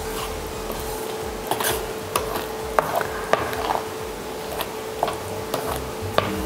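A wooden spatula stirs and mashes thick pav bhaji masala in a steel kadai. It makes soft squelching and rubbing, with scattered light taps and scrapes against the pan. A steady hum runs underneath.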